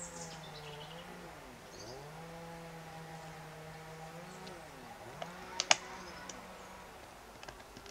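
A black plastic plant pot clacks sharply a few times as a dog bites at it and pushes its head into it, the loudest clack about three-quarters through. Under it, a low droning tone rises, holds and falls three times, each swell lasting about two seconds.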